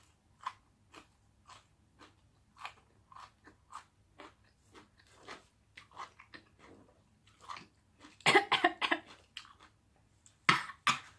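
Close-up chewing of a mouthful of omelette and kimchi: short, wet mouth clicks about twice a second. Near the end come two louder, rougher bursts, about eight and ten and a half seconds in.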